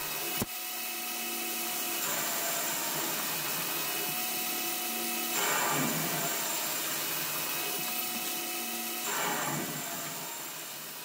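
A small CNC lathe is parting 6061 aluminium bar with a coated carbide parting insert. The spindle gives a steady whine, and a rough cutting noise swells three times. There is a sharp click about half a second in.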